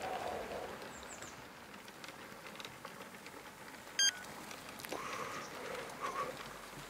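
Quiet outdoor background with a faint high chirp about a second in and a single short, high-pitched electronic beep about four seconds in, the loudest sound.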